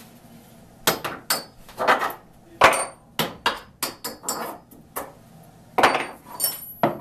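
A series of about a dozen sharp, irregular metal clanks and knocks, several with a brief high ringing, as heavy metal tools or vise parts are handled and struck.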